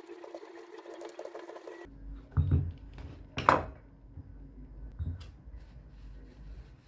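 Shimano Catana spinning reel's mechanism whirring with fine rapid ticking, which stops abruptly about two seconds in. A few handling knocks and one sharp click follow.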